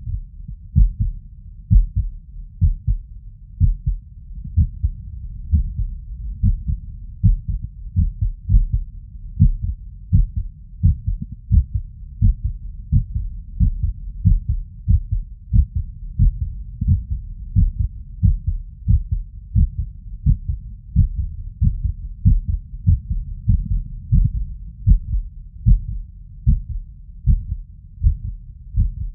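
Human heart sounds heard through a stethoscope's diaphragm over the tricuspid valve area after physical exertion: a continuous series of low, dull beats, with an arrhythmia.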